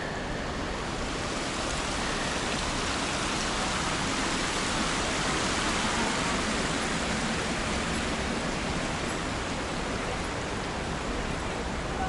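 Shallow water of the Cheonggyecheon stream rushing over its bed in a steady splashing hiss, growing a little louder around the middle.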